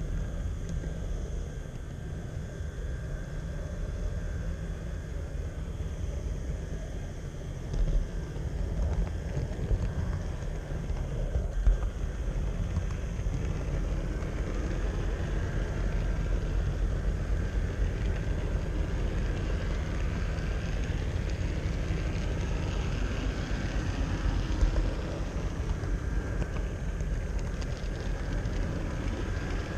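Steady rumble and vibration of an HO-scale model train rolling along its track, picked up by a camera riding on the train, with a few sharper knocks along the way.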